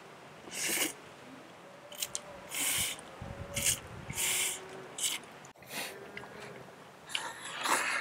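Kalguksu noodles being slurped: about six short noisy slurps in the first five seconds, then a longer one near the end. A cow moos faintly in the background.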